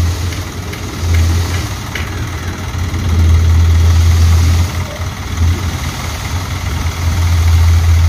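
Dump truck engine running while its tipped bed unloads sand, a deep drone that swells and eases several times.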